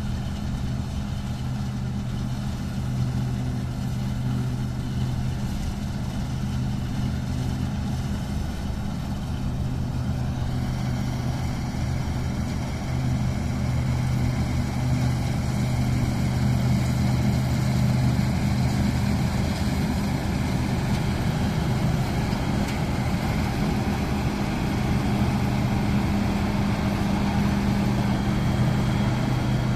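New Holland TC5070 combine harvester running steadily while cutting and threshing wheat, a continuous low engine and machinery drone. It grows louder and brighter from about a third of the way through as the machine comes closer.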